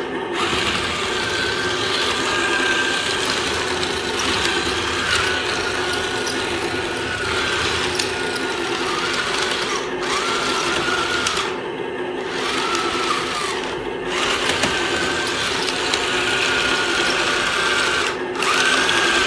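Small electric drive motors and gearboxes of a 1/35-scale Q-version ZTZ-99A remote-control toy tank whining as it drives. The whine starts and stops several times, rising in pitch as the tracks speed up and falling as they slow, with a few short pauses in the second half.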